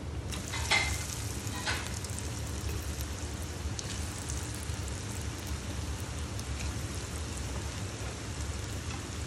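Potato fries deep-frying in hot oil: a steady sizzle with two short knocks in the first two seconds.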